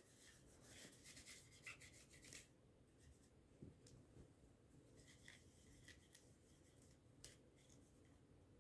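Faint scratchy scrubbing strokes on a smartphone as it is cleaned, coming in two spells of quick strokes with a few light clicks between.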